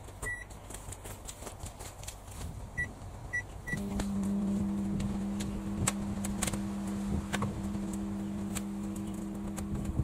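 Microwave oven keypad beeping, once and then three quick beeps, before the oven switches on about four seconds in with a steady hum. Sharp snapping clicks of electrical arcing from the Christmas lights inside the cavity sound through the running.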